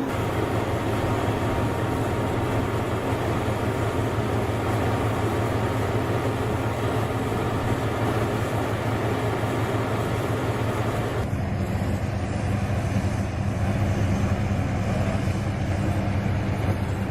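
Heavy machinery running: a steady, loud mechanical drone with a strong low hum. About eleven seconds in it switches abruptly to a slightly different machine sound.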